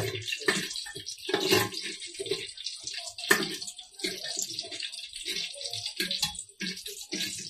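Mutton pieces frying in hot ghee in a pressure cooker, with a faint steady sizzle. A metal spoon scrapes and knocks against the pot in irregular strokes as the meat is stirred.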